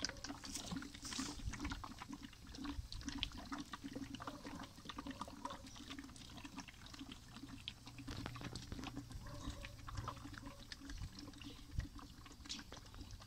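A calf sucking milk from a hand-held feeding bottle: wet slurping and smacking, with many small irregular clicks.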